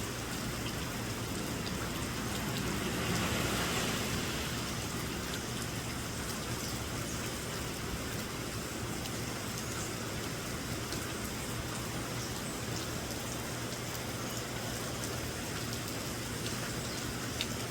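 Steady rain falling, a soft even hiss that swells a little a few seconds in.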